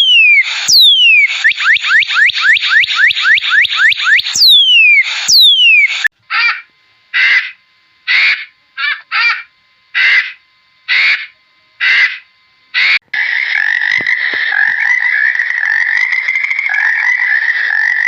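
Animal calls in cut-together clips. First comes a fast run of falling whistled notes. About six seconds in these give way to separate calls roughly once a second. From about thirteen seconds in there is a continuous trill.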